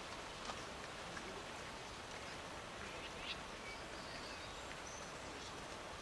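A few faint, short bird calls, about three seconds in and again between four and five seconds, over a steady hiss of outdoor background noise.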